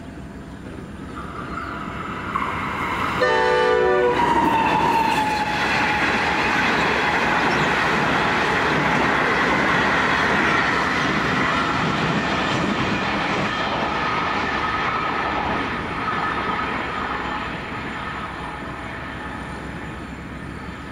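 A locomotive horn sounds once, briefly, about three seconds in. Then the Overland passenger train, hauled by NR88, passes at speed: a loud run of steel wheels on rail that slowly fades near the end.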